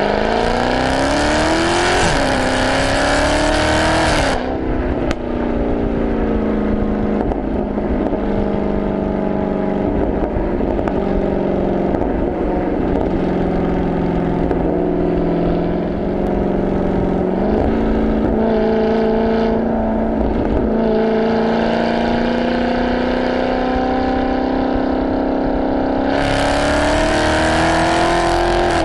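Dodge Charger Hellcat's supercharged 6.2-litre Hemi V8 through a Corsa Xtreme exhaust, heard right at the tailpipe. It accelerates with rising pitch and a gear change about two seconds in, then lifts off about four seconds in. A long spell of cruising and engine braking follows, with a few exhaust pops, and it accelerates again near the end.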